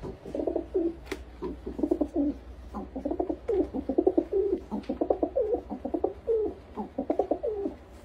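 Pigeons cooing: a run of low coos one after another, with only brief pauses between phrases.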